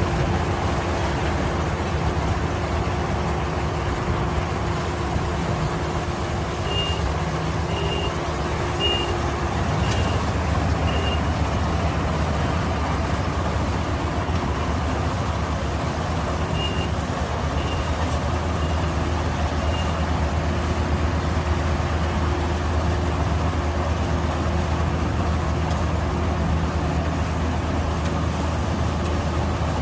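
Crawler rice combine harvester's diesel engine running steadily under load. A high beeping alarm sounds about once a second, five times about a quarter of the way in and four more times a little past halfway, like a reversing alarm.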